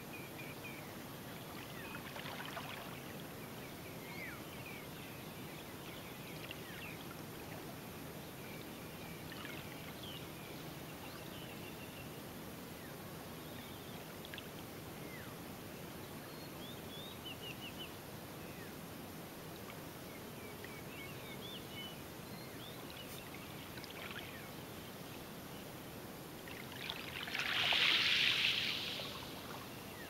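Birds chirping in short calls over the soft lapping of a calm sea at the shore. Near the end, a louder rushing sound swells and fades over about two seconds.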